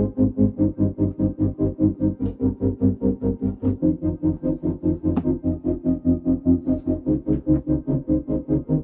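Background synthesizer music with a quick, even pulsing beat, about five pulses a second.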